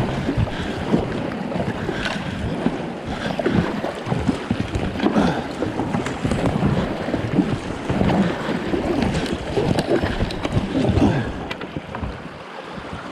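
Paddle strokes splashing in the water from an Alpacka Mule packraft, irregular and continuous, with wind noise on the microphone.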